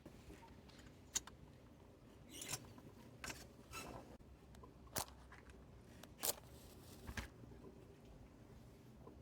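About seven sharp, short snips and clicks, spaced irregularly, from small hand work close to the microphone.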